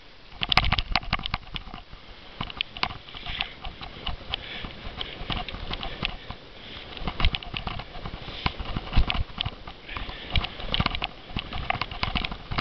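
Cyclo-cross bike rattling and knocking as it is ridden over bumpy grass, with many irregular sharp clicks and thumps over a steady rushing noise.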